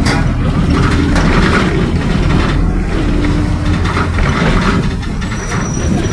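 Mercedes-Benz OF-1722M city bus under way, heard from inside: steady engine and road noise with the rear differential growling. A faint low whine comes and goes twice.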